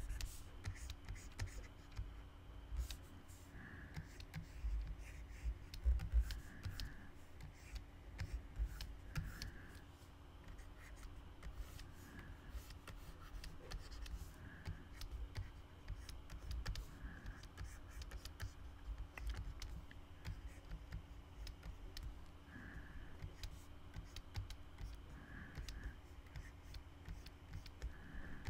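Faint, irregular scratching and tapping of a pen stylus on a Wacom graphics tablet as ink strokes are drawn, over a steady low hum.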